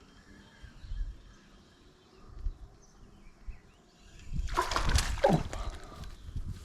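A splash in water about four and a half seconds in, lasting about a second, after a few faint low thumps.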